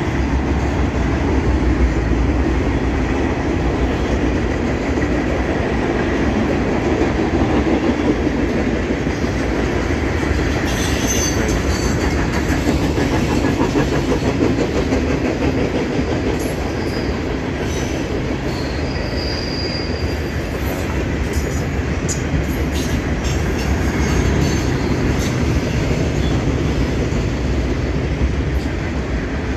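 Freight train cars, covered hoppers and tank cars, rolling past: a steady rumble and clatter of steel wheels on the rails, with a few brief high wheel squeals in the second half.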